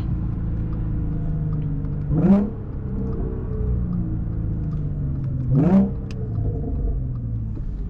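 Audi S4's supercharged V6 running through an AWE touring exhaust, heard from inside the car, with a steady low hum. Twice, about three seconds apart, the engine revs up sharply in a quick blip.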